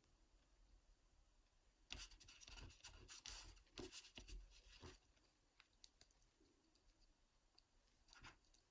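Faint scraping and clicking of a lock pick and tension wrench working inside a Union padlock, with a dense run of scratchy clicks from about two to five seconds in and a few more clicks near the end.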